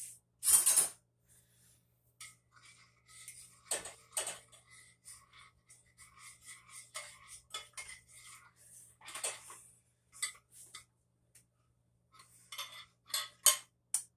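A spoon clinking and knocking against a bowl as a marinade is stirred, in scattered strokes, with a cluster of louder knocks near the end.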